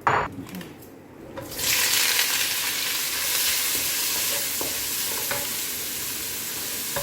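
Sausage frying in hot oil in a pan: a steady sizzle starts about a second and a half in and carries on, with a sharp knock just before it and a few light clicks from stirring.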